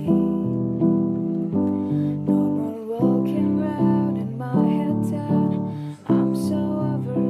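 Background music: acoustic guitar strumming chords, with a new strum about every half second.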